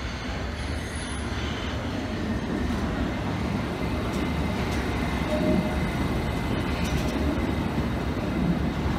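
London Underground S Stock train running along the platform: a steady rumble of wheels on rail that grows a little louder, with a faint thin whine over it from a few seconds in.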